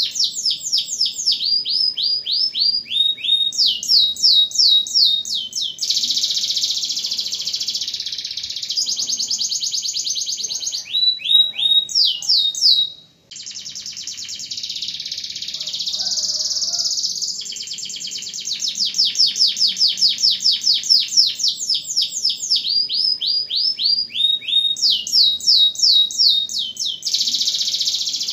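Domestic canary singing a long, loud song: runs of quick down-slurred whistled notes alternate with dense, rapid trills (rolls). The song breaks off briefly about 13 seconds in.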